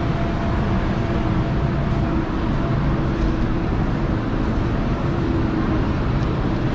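Steady low rumble and hum of indoor market-hall ambience, even throughout with no sudden sounds.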